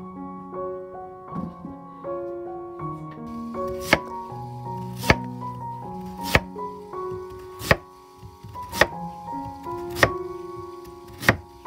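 Kitchen knife slicing through a Korean radish and striking a wooden cutting board, seven even strokes about a second and a quarter apart, starting about four seconds in. Gentle piano music plays throughout.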